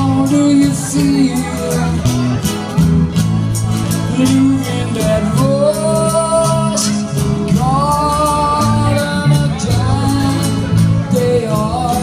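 Live cover band playing a song: a woman singing lead into a microphone over electric guitar and bass guitar, with a steady beat.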